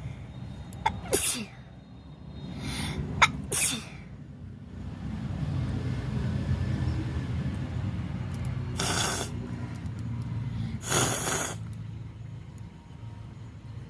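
A person with a head cold sneezing several times in quick succession in the first four seconds, some sneezes dropping in pitch at the end. Then heavy nasal breathing, broken by two longer breathy bursts at about nine and eleven seconds.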